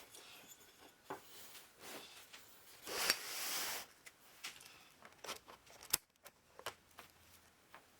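Handwork with small parts and tape: scattered light clicks and taps, and a brief rustling scrape about three seconds in.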